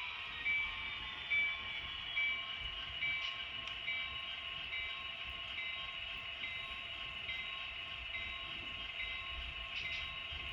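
Sound-equipped HO scale model diesel locomotive's sound decoder playing engine sound, running steadily with a short tone repeating a little over once a second.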